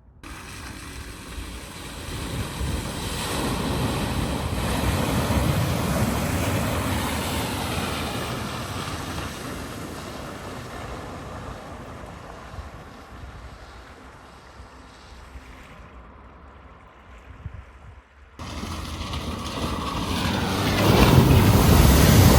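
Vehicles driving through deep floodwater at a ford: a rush of water and engine noise that swells and fades away. After a sudden cut near the end, another passage through the water builds up louder.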